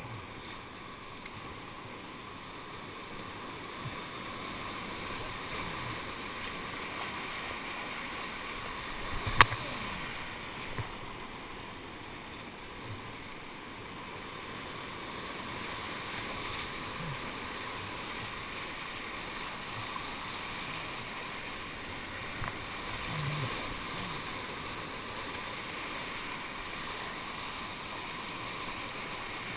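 Whitewater rushing and churning around a kayak playing in a river hole, with a sharp knock about nine seconds in.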